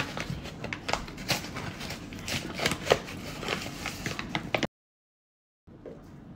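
Paper flour bag crinkling and rustling as it is handled, a crisp irregular crackle. It cuts off abruptly near the end, leaving about a second of silence, then fainter rustling returns.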